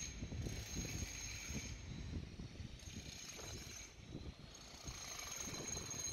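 Faint outdoor city background: a low, uneven rumble with a thin high tone that comes and goes.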